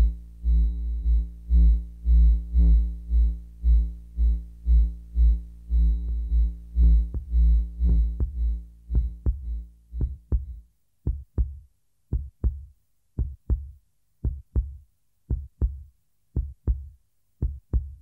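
Electronic soundtrack music: a deep low beat about twice a second under a sustained synthesizer chord. About ten seconds in the chord drops away, leaving only paired low thumps about once a second.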